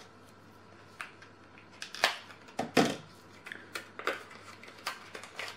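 Small cardboard box of gel nail polish being opened and the bottle handled: irregular clicks, taps and crinkles of packaging, the loudest about two and three seconds in.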